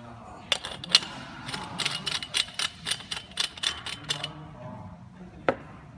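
Quick run of sharp metallic clicks and taps from vacuum pump fittings being handled and fitted, about three a second, stopping a little past four seconds in; one more sharp click near the end.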